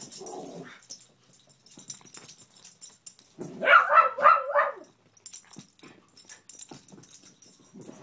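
Beagle barking in a quick burst of about four sharp barks about halfway through, at a fallen lamp she is wary of. A low growl from the rat terrier guarding the lamp sounds at the start.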